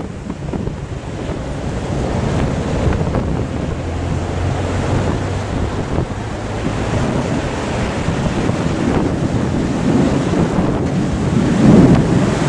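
Gusty wind ahead of a monsoon storm, rushing and buffeting the microphone, with a stronger gust near the end.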